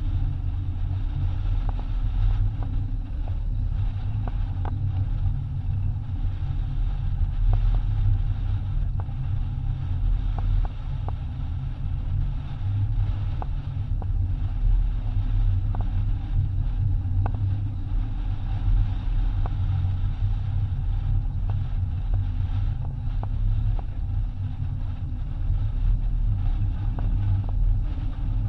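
Steady low rumble of wind buffeting the microphone and water rushing past the hull of a racing yacht sailing heeled over at speed, with scattered faint clicks.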